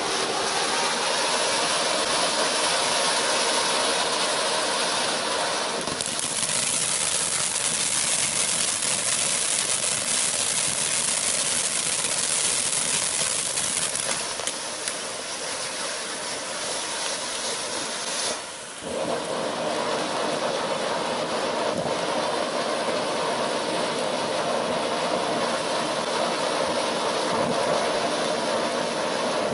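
Iron Man Fireworks '5 Minute Safari' ground fountain burning with a continuous hissing spray of sparks. The hiss grows brighter about six seconds in, drops out briefly about two-thirds of the way through, and then comes back fuller as the effect changes.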